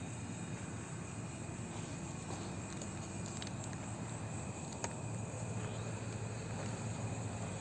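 A steady chorus of night insects, crickets among them, with a single sharp click about five seconds in.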